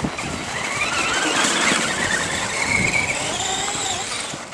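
Traxxas radio-controlled car's electric motor and drivetrain whining, the pitch rising and falling as the throttle is worked.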